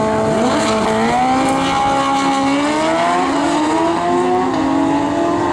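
Drag-racing motorcycles launching and accelerating down the strip, the engines revving up in pitch with drops back at each gear shift.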